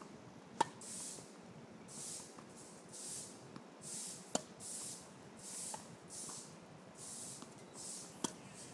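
Tennis racket striking the ball on ground strokes, three sharp hits about four seconds apart. A faint hiss comes and goes between the hits.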